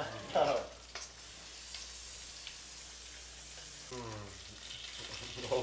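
Food sizzling in a frying pan on the stove, a steady hiss.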